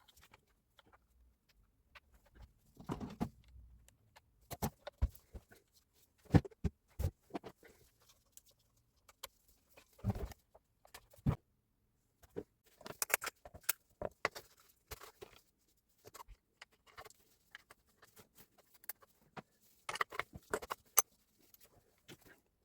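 Irregular light clicks and knocks of a Hilti TE60 rotary hammer and its parts being handled on a workbench during repair, with short quiet gaps between them.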